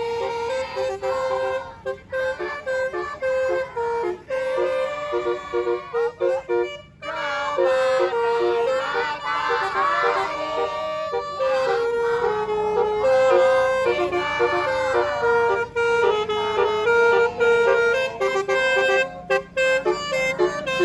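Minibus 'telolet' multi-tone horn playing a tune, its held notes stepping from one pitch to the next.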